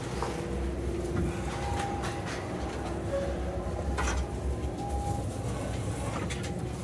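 Steady low rumble and hum of a train standing at the platform, heard from inside its door vestibule, with a few sharp knocks of footsteps as someone steps aboard and walks into the car.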